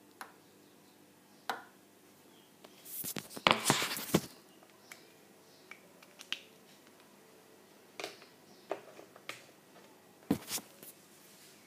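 Handling noise from the recording iPad and a paint marker: scattered sharp clicks and knocks. About three seconds in there is a louder, rougher burst of knocking and rubbing lasting about a second, and another cluster of clicks comes near the end.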